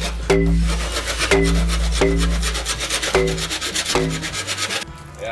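PVC pipe being twisted and pushed into a pipe fitting, creaking and rubbing in about five repeated strokes roughly a second apart. Each stroke starts with a click and a short squeal of plastic on plastic, and the strokes stop shortly before the end.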